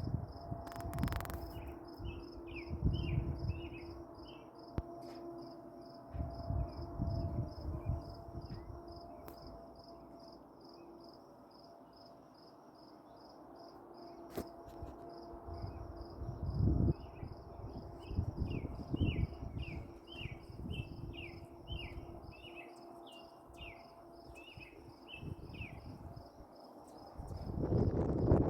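Insect chirping steadily in an even, rapid high pulse, with a bird's runs of short descending chirps near the start and again from the middle on. Low rumbles come and go underneath.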